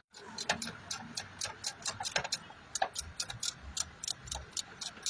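A quick, irregular run of sharp clicks and light knocks, several a second, like small hard parts being handled and tapped.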